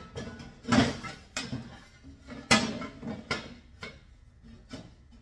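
Steel diamond-plate pieces knocking and clattering: about half a dozen sharp knocks with a short ring after each. The loudest come about a second in and again halfway through.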